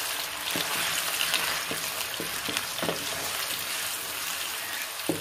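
Blended onion paste sizzling in hot olive oil in a kadai as it is stirred with a wooden spatula, with a few soft knocks of the spatula against the pan.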